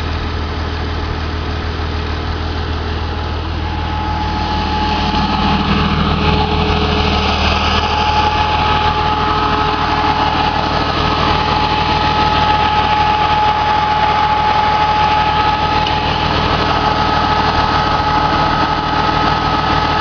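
Off-road ATV engine idling steadily, growing a little louder about five seconds in, when a steady high whine joins it.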